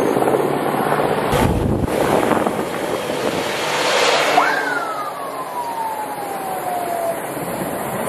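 Rushing outdoor noise, then about four seconds in a fire engine's siren gives a single wail that rises sharply and slides slowly down over about three seconds.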